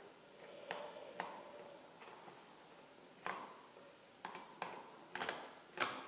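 A key being pushed into and turned in a clear acrylic practice padlock: a series of sharp, irregularly spaced clicks as the spring-loaded brass pins ride over the key's cuts, with the loudest click near the end as the plug turns.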